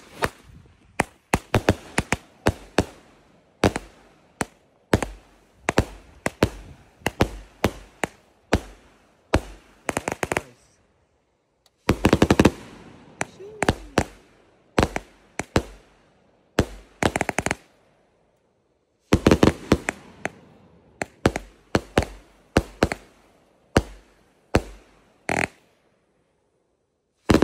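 BDH Elemental 49-shot 500g fireworks cake firing: a long string of sharp bangs as the shots launch and break, each with a short echoing tail. The bangs come in quick runs broken by three short pauses.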